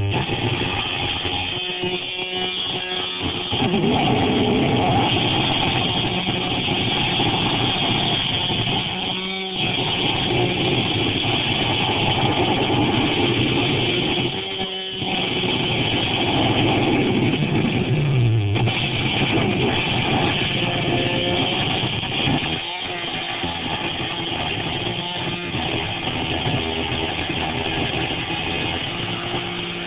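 Electric toothbrush vibrating against a homemade Altoids-tin noise box, amplified into a harsh, distorted buzzing drone. The drone breaks off briefly several times.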